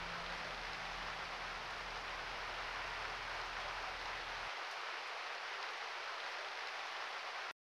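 Steady hiss of rain, with a low hum beneath it that stops suddenly about four and a half seconds in; everything cuts off abruptly just before the end.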